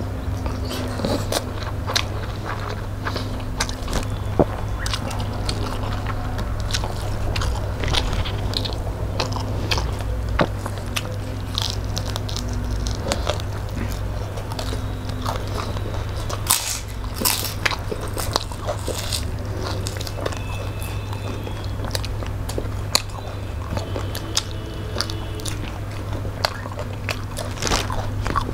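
Close-miked eating by hand: chewing and biting rice, fish curry and fried fish, with many short sharp mouth and finger clicks over a steady low hum.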